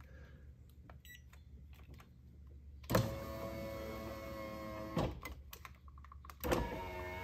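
Car power-window motor driving the glass. It is quiet for the first few seconds, then runs steadily for about two seconds, each start and stop sharp and clicky. It starts again about a second and a half later and keeps running.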